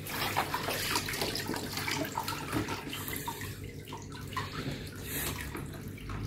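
Wet mop being dunked and worked in a bucket of water, with water sloshing and splashing and many small wet clicks.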